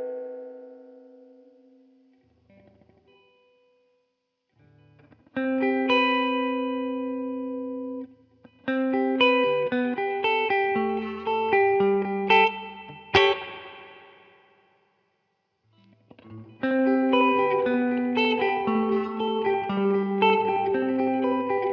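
Clean electric guitar, a Fender Jazzmaster Modern Player with two humbuckers, played through an Ibanez DE-7 delay pedal into a simulated Fender Princeton Reverb amp. A chord rings out and fades, and after a pause picked chords and single notes start about five seconds in. The playing stops briefly, then resumes near the end.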